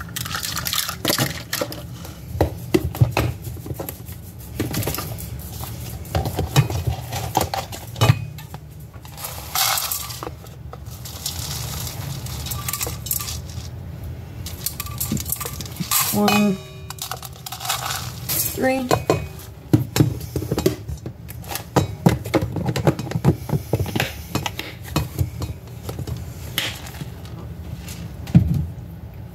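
Dry rolled oats poured from a plastic container into a measuring cup and tipped into a stainless steel mixing bowl: the flakes rattle and patter on the metal, with repeated clinks and knocks of the cup against the bowl.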